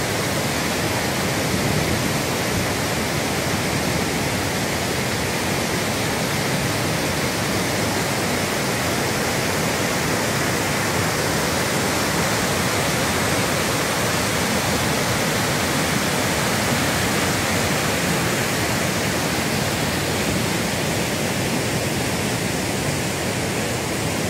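Waterfall: heavy white water pouring down over rock ledges in a steady, loud rush.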